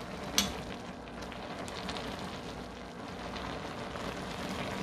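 A pot of spicy Korean hot pot broth boiling, a steady bubbling crackle, with one sharp tap about half a second in.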